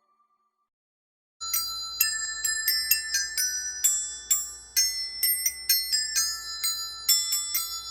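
Vintage Ye Merry Minstrel Caroling Christmas Bells playing a carol, a quick run of struck bell notes ringing out one after another, with a faint low hum underneath. The notes start about a second and a half in, after a moment of silence.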